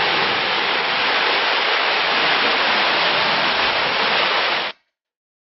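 Mountain creek rapids rushing over rock ledges: a steady loud rush of whitewater that cuts off abruptly near the end.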